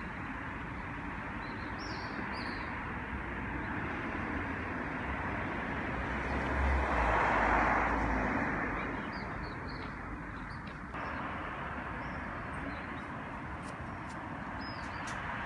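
Outdoor street ambience: steady traffic noise that swells with a low rumble about seven seconds in, and a few short bird chirps.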